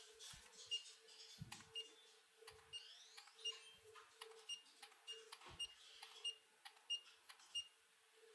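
Faint clicks and a run of short high-pitched beeps, about two or three a second, over a low steady hum.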